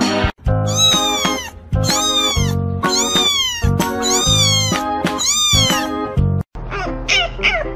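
A very young kitten meowing over and over: about six long, high-pitched meows, each rising and then falling away, over background music. Near the end, after a brief break, shorter and quicker calls begin.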